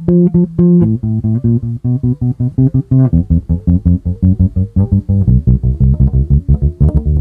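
Electric bass plucked with three right-hand fingers in quick, even repeated notes, three plucks on each fret. The pitch moves fret by fret and drops to lower strings about one second in and again about three seconds in.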